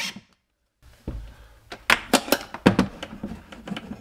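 A cordless drill's whine stops right at the start. After a short silence come irregular sharp knocks and taps, about eight in three seconds, as hands handle a wall-mounted transfer switch enclosure.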